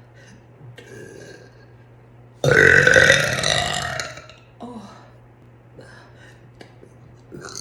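A woman's loud, long burp that starts suddenly about two and a half seconds in and fades out over nearly two seconds, followed by small mouth clicks and breaths. A second burp begins right at the end.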